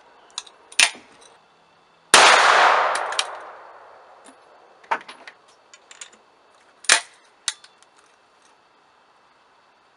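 Sharp metallic clicks and clacks of a break-action 12 gauge shotgun being handled at its action, with one loud bang about two seconds in that echoes away over about two seconds. The clicks stop as the gun is shouldered.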